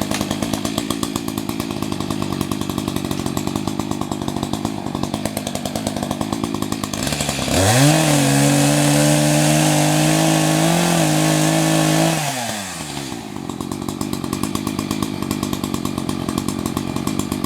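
Echo CS-590 Timberwolf 60cc two-stroke chainsaw idling with a pulsing beat. About seven seconds in, it revs up to full throttle and holds there for around four and a half seconds, then drops back to idle.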